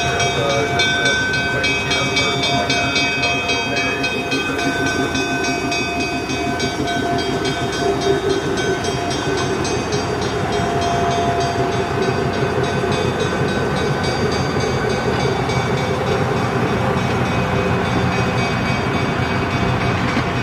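A GE 80-ton diesel switcher locomotive running steadily as it slowly pulls a train of passenger cars past.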